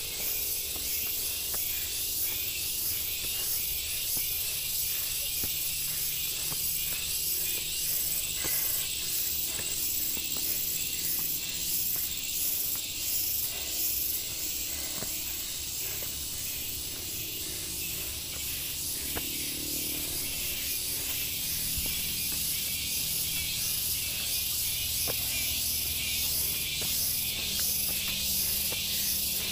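Cicada chorus: a steady high hiss with a shrill ringing tone and rapid pulsing.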